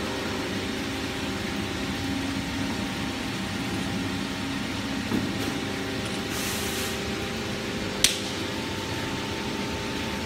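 Two-roll silicone mixing mill running steadily, a hum with several steady tones as blue silicone compound is worked between its steel rolls. A brief hiss comes a little past six seconds in and a single sharp click about eight seconds in.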